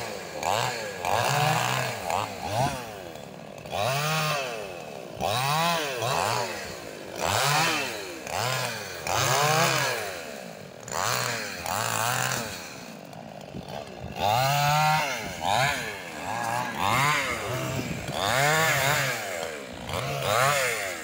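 Petrol chainsaw revving up and dropping back to idle over and over, roughly every second or two, as it cuts through moringa stems during pruning.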